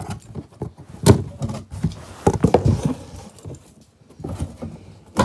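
A cardboard box being opened and handled: irregular rustling, scraping and knocks, the loudest knock about a second in and a busy stretch of handling between two and three seconds.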